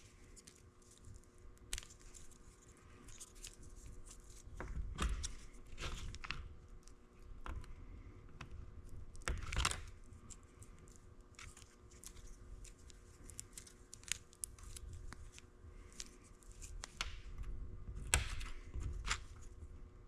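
Hands working on a fuel injector wiring harness: scattered small clicks, snips and rustles of wire and sheathing being handled and cut, with a few louder ones along the way.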